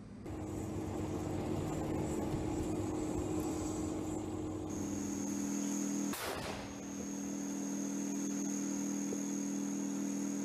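Tank engine running with a steady drone; its tone changes about halfway through, and there is a brief rushing noise about six seconds in.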